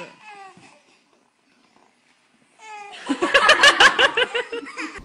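A short vocal sound at the start, then, after a near-silent pause, a loud burst of rapid, pulsing laughter about three seconds in that tapers off near the end.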